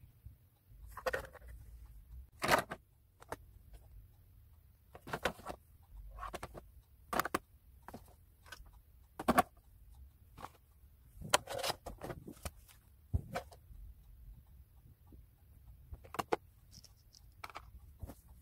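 Makeup items being handled and set into a drawer: about a dozen irregular clicks and clatters of plastic cases and compacts, with short quiet gaps between them.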